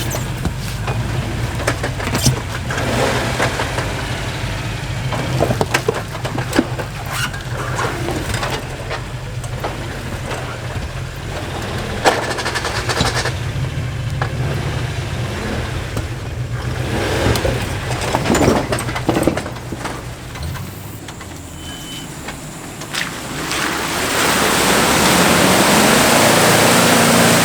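A 2007 Jeep JK Wrangler's 3.8-litre V6 engine runs under load as the Jeep, on 35-inch tires, works through a mud pit, with scattered clicks and splashes. Near the end a loud, even rushing noise rises over the engine.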